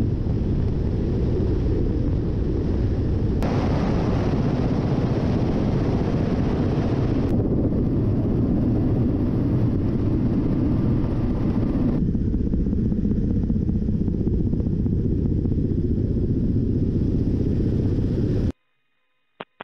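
Ka-52 attack helicopter's rotor and engine noise heard in flight: a loud, steady, dense rumble whose tone shifts abruptly at several cuts. It stops suddenly near the end, followed by a single click.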